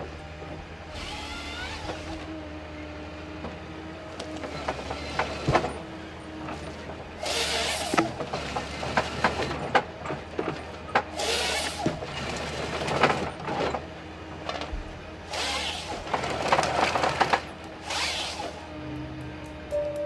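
Forestry harvester working: a steady engine and hydraulic hum, broken by several loud rough bursts of noise a second or two long as the harvesting head saws and feeds logs, with a few sharp knocks between them.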